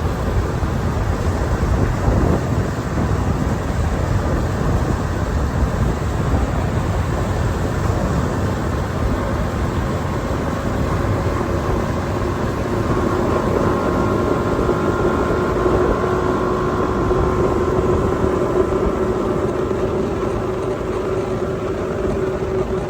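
Boat under way powered by a Mariner V6 150 hp two-stroke outboard: steady engine drone mixed with loud wind and water rush. The engine note stands out more clearly about halfway through.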